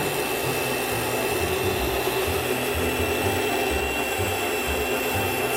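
Gemini Taurus 3 ring saw running, its ring blade grinding through glass as the piece is fed against it: a steady motor and grinding noise with a thin high whine.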